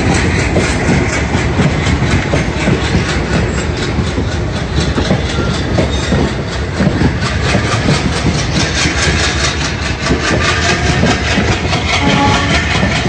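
Passenger coaches of an Indian Railways express rolling past close by, their wheels clattering over the rail joints in a steady run of clicks and clanks.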